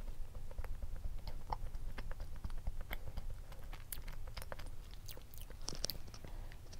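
Close-up chewing of a piece of red velvet brownie, with many small wet mouth clicks, and a fresh bite taken near the end.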